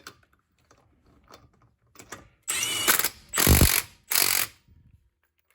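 Cordless stubby impact wrench hammering in three short bursts, the middle one the loudest, after a few light clicks.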